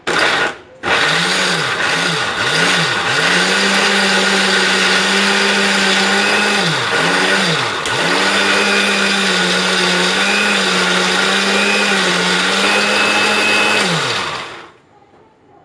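Kitchen mixer grinder motor grinding green cardamom, red capsicum, onion and curd into a wet paste. After a short opening burst, the motor speed dips and climbs several times in quick pulses, then runs steadily with a whine, dips twice about halfway through, and winds down near the end.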